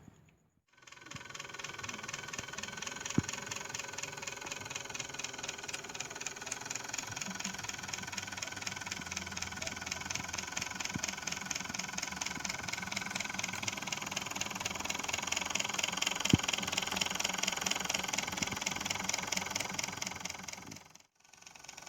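The engine of a handmade RC miniature Hino 500 truck running steadily with a fast, even pulse, growing somewhat louder later on, with two sharp clicks. It briefly cuts out near the end and then resumes.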